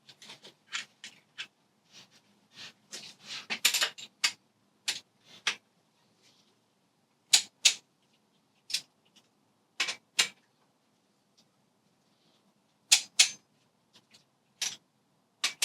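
Torque wrench ratcheting and clicking as the cylinder head bolts are tightened to 60 Nm: irregular sharp clicks, with quick runs of ratcheting and single louder clicks.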